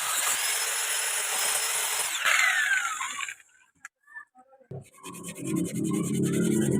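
Wood lathe running with a tool cutting or sanding the spinning wood, a high whine over the scraping. About two seconds in the motor is switched off and its whine falls away, then after a short pause a machine starts up again and builds.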